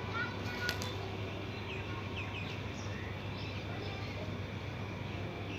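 Small birds chirping in short, quick high notes scattered through, over a steady background hiss and a low hum.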